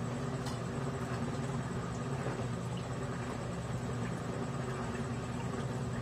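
Consul CWE13AB 13 kg top-loading washing machine agitating a heavy blanket in the wash: a steady motor hum under the churning of the load, with a few faint clicks.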